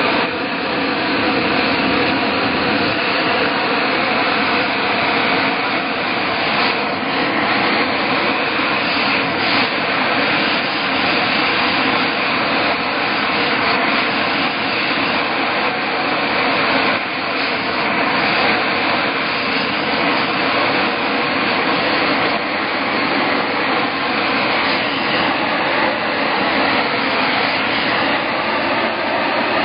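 Steady, loud rushing noise of a running machine, with a faint steady hum beneath it.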